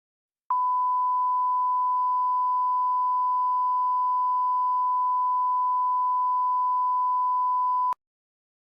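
Emergency alert attention tone: one steady, unwavering electronic tone lasting about seven seconds. It starts and cuts off abruptly, ending on a faint click.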